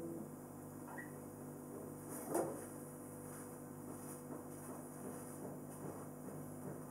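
A classical guitar's last chord dies away, then a single thump about two and a half seconds in and faint shuffling and handling noises as the player gets up from his seat and moves to the camera.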